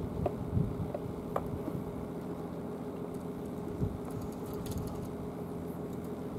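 A steady engine hum runs throughout, with a few light clicks in the first second and a half.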